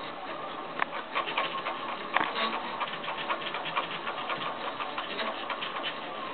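Home-built 3D printer printing: its stepper motors drive the print head in short rapid moves, giving a dense patter of ticks and clicks with a faint whine, and a couple of sharper clicks in the first few seconds.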